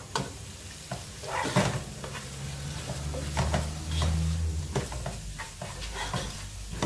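Metal slotted spoon stirring and scraping onions, tomato and spice powders sizzling in oil in a nonstick pot, in short repeated strokes. The masala is being fried until the raw smell of the spice powders goes.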